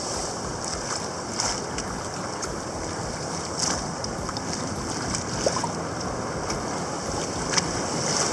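Choppy sea water sloshing around a kayak, with surf and steady wind noise on the microphone, and a few faint knocks.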